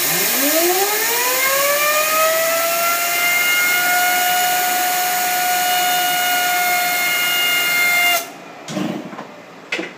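Compressed air blasting from a compressor's blower nozzle into a Perfect Fry fryer's main fan, spinning up a fan that grease has kept from starting. A loud hiss carries a whine that rises in pitch over the first three seconds or so as the fan speeds up, then holds steady. The air cuts off suddenly about eight seconds in.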